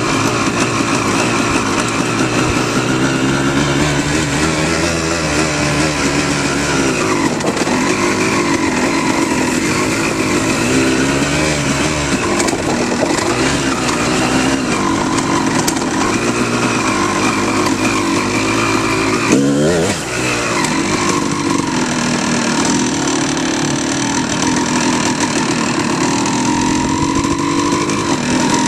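Off-road motorcycle engine running as it is ridden along a trail, its pitch rising and falling with the throttle. There is one quick rev up and drop about two-thirds of the way through.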